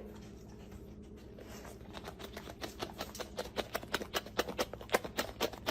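A fast, irregular run of light taps, about four to six a second, starting about two seconds in and growing louder, over a faint steady hum.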